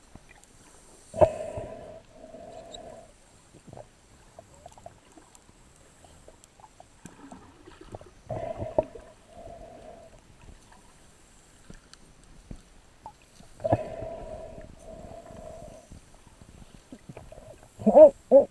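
A snorkeler breathing through a snorkel, heard muffled through the water: pairs of hollow breath sounds come every five to six seconds, with a sharper, louder pair near the end.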